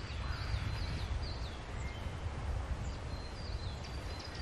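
A small bird repeating short, high chirps over a steady low rumble.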